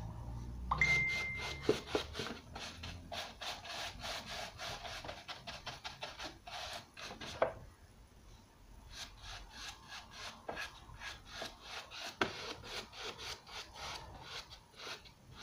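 Round bristle paintbrush scrubbing paint onto a lampshade in quick, uneven strokes, a dry rasping brush-on-shade sound. A short steady high tone sounds about a second in.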